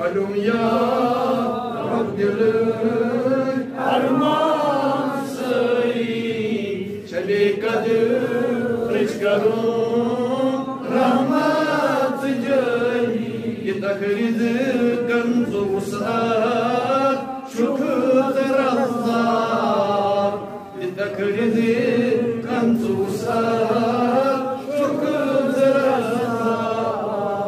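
A man's solo voice chanting a devotional supplication poem (munajaat) in a slow, melodic, drawn-out line, with short pauses for breath, amplified through a microphone.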